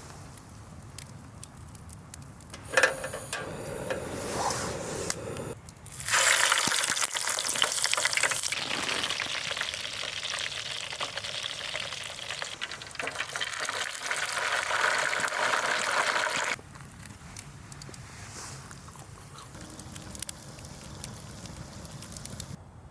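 Food frying in a hot pan, sizzling loudly for about ten seconds and then cutting off suddenly, after a shorter, quieter stretch of sizzling or stirring.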